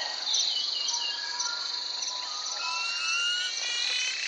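Forest ambience: a steady, high-pitched chorus of insects, with thin whistled bird notes sliding in pitch over it, more of them in the second half.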